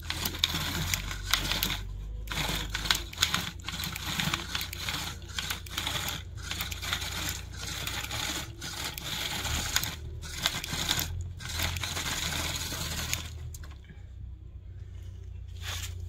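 Toy tractor's small electric motor and gearbox running under load, with a dense clicking crackle from inside the gearbox: its gears are breaking and slipping. The noise comes in spurts with brief stops and drops away for a couple of seconds near the end.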